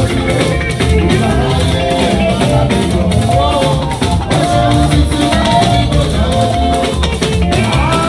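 Live band music with a steady drum beat, and a man singing lead through the sound system.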